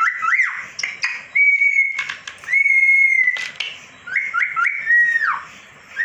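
Indian ringneck parakeet whistling: short rising whistles, then two long held notes, more quick rising whistles and a falling note near the end. A few sharp clicks fall between the whistles.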